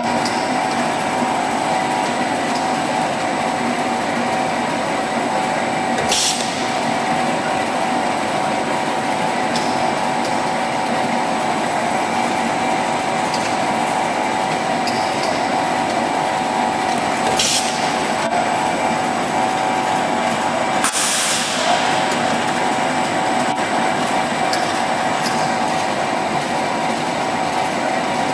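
PVC medical tube extrusion line running: a steady machine drone with several fixed whining tones from its motors and haul-off. A few short hisses cut through, about six seconds in, again past the middle, and a longer one about three-quarters through.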